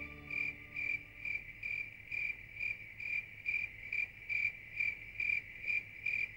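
A cricket chirping steadily, a high trill with about two louder chirps a second.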